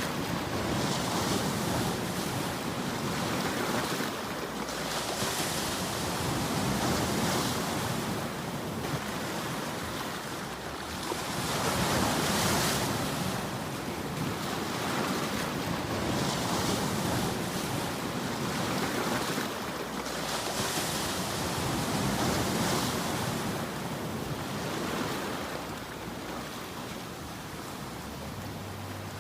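Sea waves breaking and washing over a rocky shore, a rushing hiss that swells and eases every few seconds.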